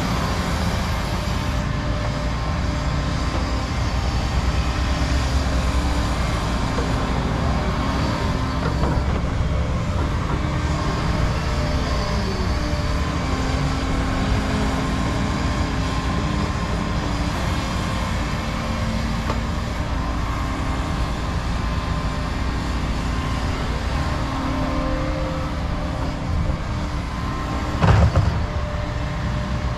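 Diesel engines and hydraulics of tracked excavators digging topsoil: a steady engine drone that rises and falls a little as they work. A single loud clunk near the end.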